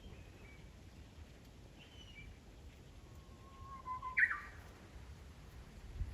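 Japanese bush warbler singing: a long held whistle, then a quick, louder flourish of higher notes about four seconds in. Faint thin chirps from other birds come earlier.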